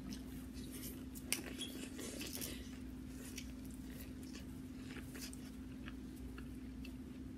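A person chewing boiled corn on the cob close to the microphone: soft wet mouth clicks and smacks scattered irregularly, over a steady low hum.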